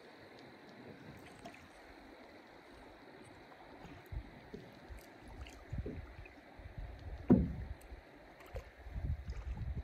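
Canoe moving through shallow water: a quiet wash of water at first, then from about four seconds in irregular low thuds and splashes of paddling against the hull, with one sharper knock about seven seconds in.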